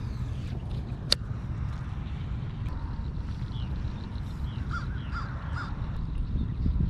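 Crows cawing several times, over a steady low rumble, with a single sharp click about a second in.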